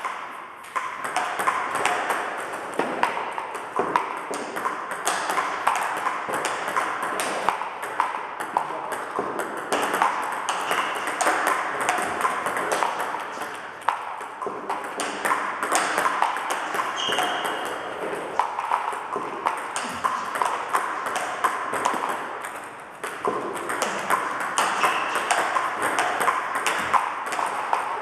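Table tennis multiball drill: a fast, steady stream of celluloid-type plastic balls clicking off the table and the bats as one ball after another is fed and returned. The clicking eases off briefly twice, about halfway and toward the end.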